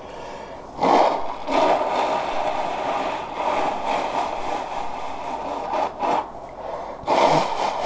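Nose being wiped clean with a paper napkin after a messy sneeze: several seconds of scratchy rubbing noise close to the microphone, then a shorter burst near the end.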